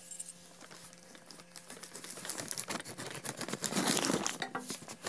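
Plastic courier mailer bag crinkling and rustling as it is handled and cut open with scissors, loudest about four seconds in.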